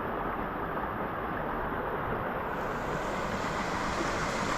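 Creek water rushing steadily over rock and into a pool in a slot canyon, an even, unbroken rushing noise.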